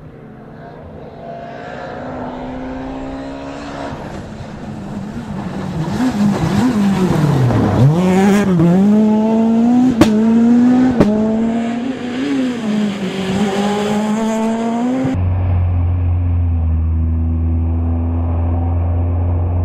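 Skoda Fabia S2000 rally car's engine revving hard as the car approaches and passes, its pitch rising and dropping through gear changes, with two sharp cracks about ten and eleven seconds in. About fifteen seconds in the sound cuts abruptly to a steadier, duller engine note.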